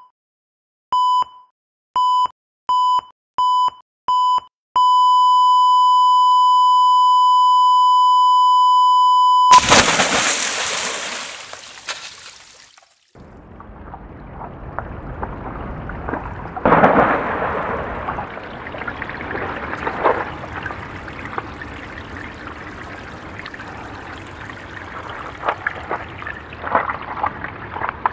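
Heart monitor beeping, the beeps coming faster, then flatlining in one long steady tone. The tone is cut off by a loud rush of hissing noise that fades away, and then water sloshes and trickles around a body in a pond, with a louder splash about halfway through.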